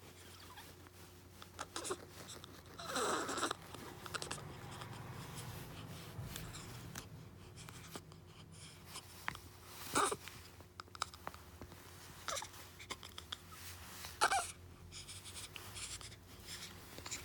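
A baby's small sounds: a brief squeal falling in pitch about three seconds in, then two short, sudden vocal catches about ten and fourteen seconds in, over a low steady hum.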